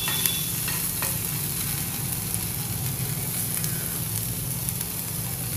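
Diced capsicum and paneer sizzling in a little oil on a hot tawa, with a steady frying hiss. A couple of light clicks of the spatula against the pan come near the start and about a second in.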